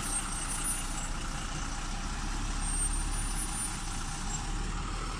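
A heavy truck's engine running steadily with a constant low rumble, the truck manoeuvring.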